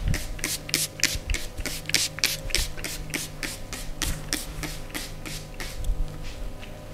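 Hands rubbing quickly and repeatedly over skin in a massage, about four to five brisk strokes a second.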